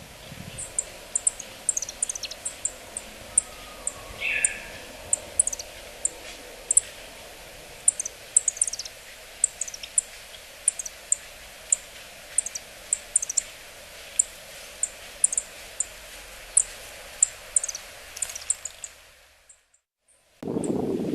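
Yellow-throated bunting calling: short, thin, very high call notes, many sliding down in pitch, repeated irregularly about once or twice a second over a steady background hiss. The track fades out near the end, and a louder low noise then starts abruptly with the high calls going on.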